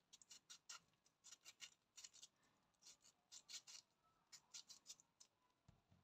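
Small kitchen knife slicing thin rounds off a lemon held in the hand: faint, crisp cuts through the rind in several short runs.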